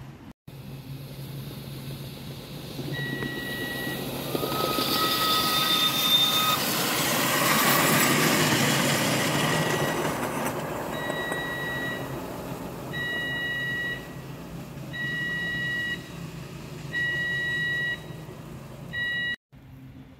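A 7¼-inch gauge miniature train passes close by, the noise of its wheels on the track swelling and fading, with its whistle sounding for about two seconds as it comes near. A level-crossing alarm beeps in even pulses, about one second on and one second off.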